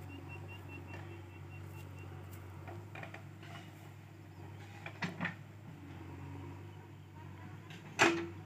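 Diesel engine running with a low, steady hum. A couple of short knocks come about five seconds in, and a sharp, loud clank near the end.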